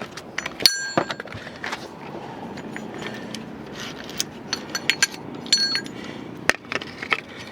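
Metal parts and tools clinking and rattling as they are handled during a spare-tire change, several short ringing clinks, with a sharper knock near the end.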